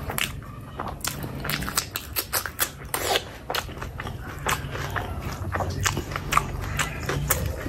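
Close-miked eating sounds: a person chewing and biting into spicy curry, with irregular wet mouth smacks and clicks.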